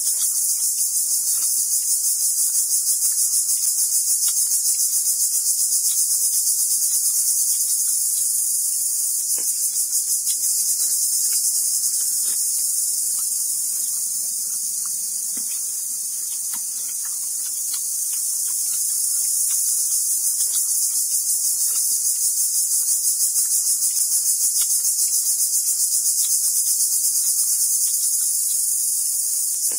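A loud, steady insect chorus: a dense, high-pitched buzz with a fast flutter. Faint scattered clicks sound beneath it as green papaya is cut against a boti blade.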